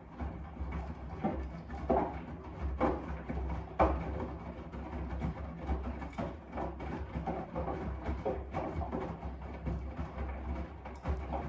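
AEG 7000 Series front-loading washing machine in its main wash: the motor hums steadily while the turning drum tumbles wet laundry, giving irregular soft thuds and sloshes.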